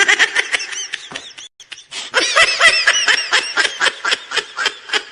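Laughter sound effect: a voice giggling in rapid bursts, in two bouts with a brief break about one and a half seconds in.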